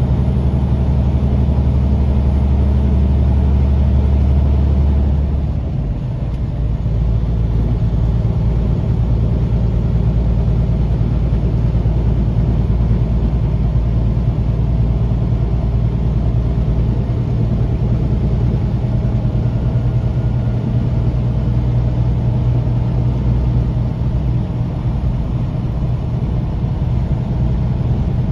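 Semi-truck's diesel engine and road noise droning steadily inside the cab while driving on the highway. The deepest part of the drone drops away about five and a half seconds in, and the engine's hum carries on steadily after that.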